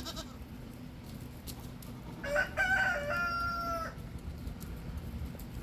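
Rooster crowing once, about two seconds in: a broken start, then a long held final note.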